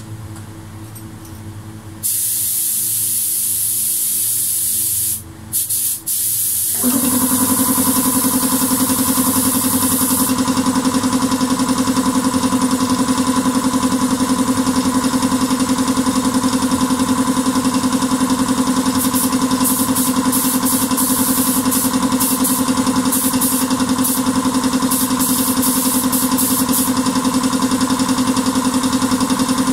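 Compressed-air spray gun hissing as clear topcoat is sprayed, with short breaks as the trigger is let go. About seven seconds in, a steady machine hum starts and runs on under the hiss, and near the end the spray comes in short bursts.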